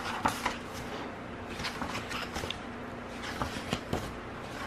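Glossy pages of a K-pop album photobook being turned and pressed flat by hand: a few short paper flaps and rustles, with soft taps of the hand on the pages.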